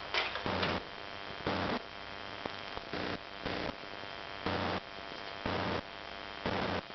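A steady electrical hum with short bursts of hiss about once a second.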